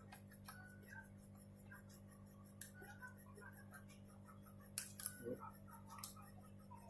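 Faint scattered clicks and taps from handling the SSD and laptop parts while fitting the drive back into the laptop, over a steady low hum. A few sharper clicks come about five and six seconds in.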